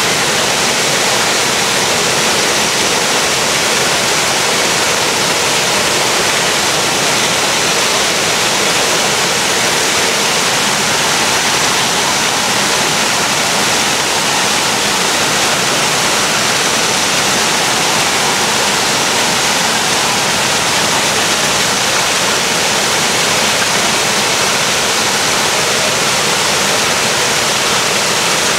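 Steady, even rush of falling water from an artificial waterfall spilling down themed rockwork.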